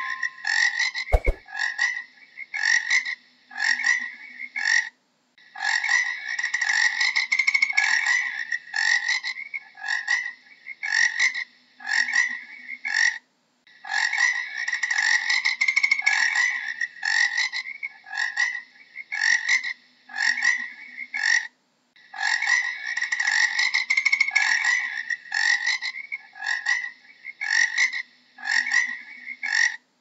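Frogs croaking in repeated calls, about one or two a second, in bouts several seconds long that break off briefly before the next begins.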